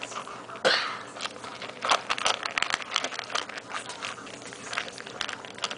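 Puppy eating dry kibble from a stainless steel bowl: irregular crunching and clicking as it chews and its muzzle pushes the kibble about in the metal bowl.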